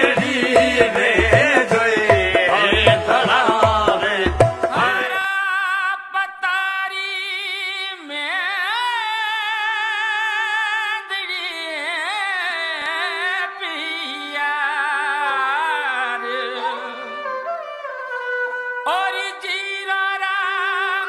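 Background music, a song: a steady drum beat with instruments for about the first five seconds, then the drums drop out and a single singing voice carries on, wavering in pitch, over a held drone.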